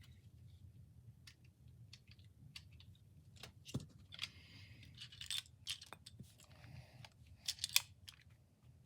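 Lego sniper rifle being reloaded: scattered plastic clicks and rattles, with a short sliding scrape about halfway through and the loudest clicks near the end.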